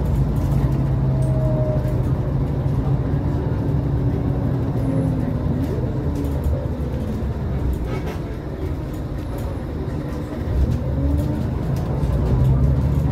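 Scania L94UA articulated bus's diesel engine running underway with a steady low drone. The drone eases off about eight seconds in and builds again a few seconds later.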